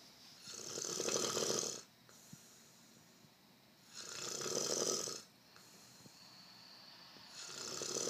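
Snoring: three long snores, each swelling over about a second and then stopping sharply, about three and a half seconds apart.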